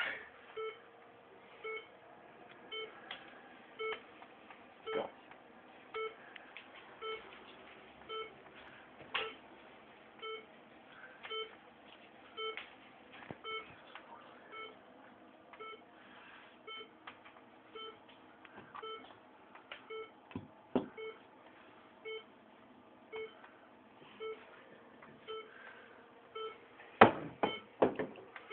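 Electronic device beeping steadily about once a second, each beep a short chord of several tones, with a few louder knocks near the end.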